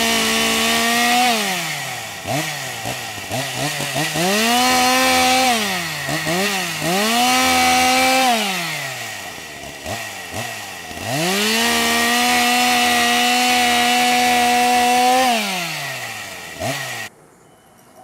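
Chainsaw revved up to high speed and let back down to idle several times, holding full speed for a second or two each time and for about four seconds in the second half. The sound cuts off abruptly about a second before the end.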